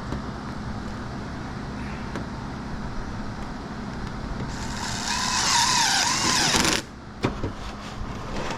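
A handheld power tool runs loudly for about two seconds with a wavering whine, starting about four and a half seconds in and cutting off abruptly, over a steady low hum; a few sharp knocks follow.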